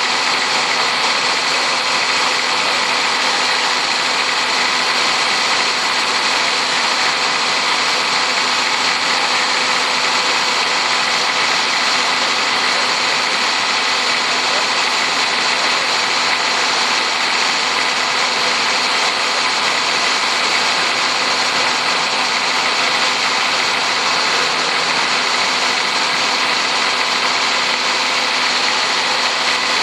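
Four-wheel-drive engine idling steadily, under a dense, unchanging hiss.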